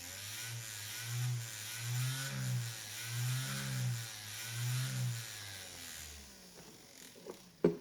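Homemade tornado siren in its high-low mode: two low tones alternating, a lower then a higher, about once a second, over a steady hiss. It fades out about six seconds in.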